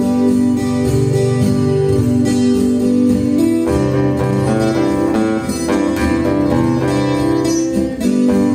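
Background guitar music, plucked notes at a steady level.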